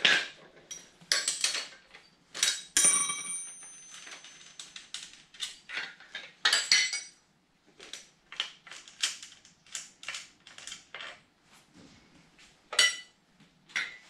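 Metal clinks and rattles of hand tools and training-wheel brackets being worked loose at a kid's bike rear axle: a string of short sharp taps and scrapes, with a metal part ringing briefly about three seconds in and a louder clink near the end.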